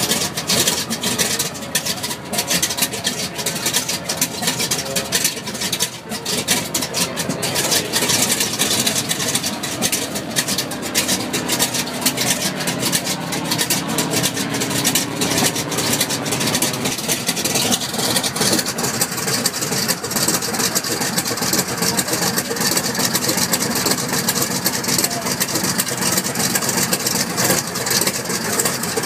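Republic P-47 Thunderbolt's 18-cylinder Pratt & Whitney R-2800 air-cooled radial engine running at low speed just after a cold start, a steady rapid firing rumble. About eighteen seconds in, the sound grows brighter, with more hiss over the top.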